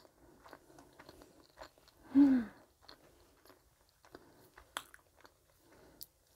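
Close-miked chewing of a sweet potato cheese bread stick, with soft wet mouth clicks and small crunches. About two seconds in comes a short, loud hummed "mmm" of enjoyment.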